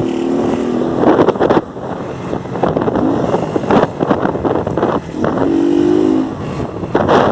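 Motorcycle engine running and revving while riding, with loud wind rushing over the microphone. The engine holds a steady pitch twice.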